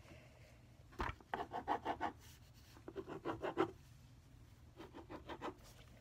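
A pen scratching across paper on a tabletop in three quick runs of short drawing strokes, several a second, with a light knock about a second in.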